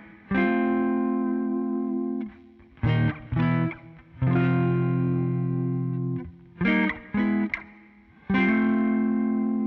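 Electric guitar with Zexcoil Legacy Signature P90-format pickups, played through a Helix amp model of a Twin Reverb with no other effects. A held chord rings out, then twice comes a pair of short chord stabs followed by a chord left ringing for about two seconds.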